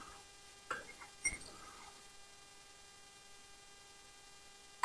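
Near quiet, broken by two faint short clinks about a second in, from the harness fittings of a standing team of horses.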